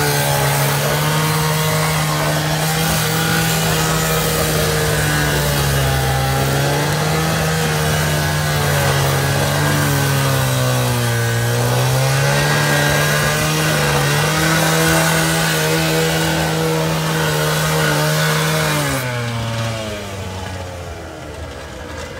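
Petrol two-stroke cut-off saw grinding its abrasive disc through a steel railway rail, the engine at high revs with a hissing, grinding cutting noise. The engine pitch sags and recovers several times as the disc is pressed into the steel. About 19 seconds in, the cutting noise stops and the engine winds down toward idle.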